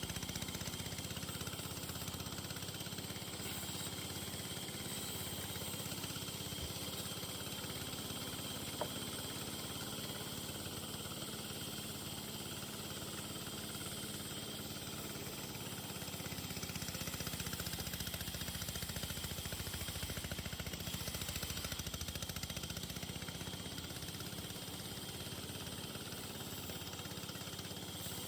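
A motor running steadily at an even speed: a low drone with a faint high whine over it.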